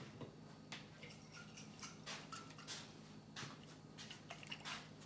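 Alfredo sauce in a skillet making faint, irregular soft ticks and small pops, over a low steady hum.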